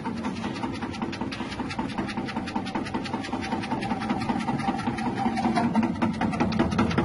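Electric chip-slicing machine with a 180-watt motor running steadily, its spinning blade cutting produce pushed down the feed tube: a low motor hum under a rapid, even ticking of cuts.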